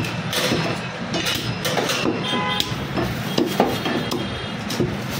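A butcher chopping mutton with a cleaver: a run of irregular sharp chops and knocks, mixed with metallic clinks of the blade.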